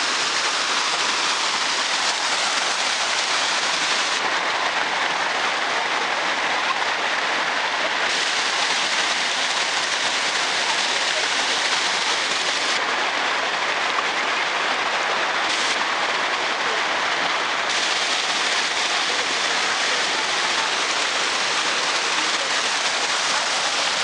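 Waterfall: water cascading over rocks in a steady, loud rush.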